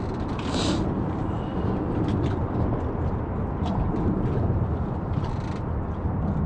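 Steady low outdoor rumble, with a short hiss about half a second in and a few faint ticks.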